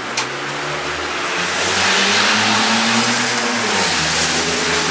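A car's engine running close by. The noise swells to its loudest midway, and its pitch drops a little near the end.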